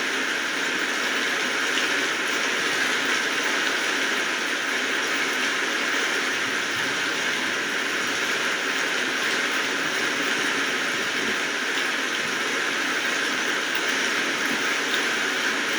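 Steady rain falling: an even, unbroken hiss of many drops with no single drips or thunder standing out.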